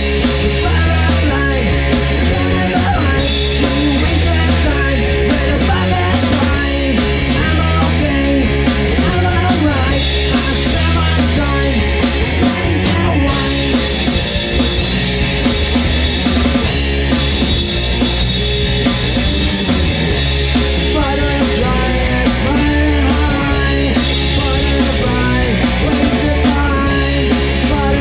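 Rock music from a full band with drum kit, dense and loud at an even level.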